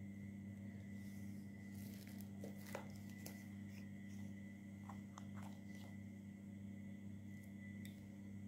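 Steady low hum with a thin high whine above it, and a few faint, scattered clicks and crinkles.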